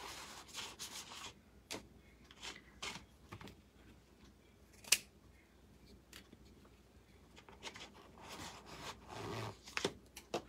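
Scissors snipping through small pieces of green craft foam, cutting them into squares: a scattering of faint, short snips and scrapes, with one sharp click about five seconds in and a busier run of cutting and rubbing near the end.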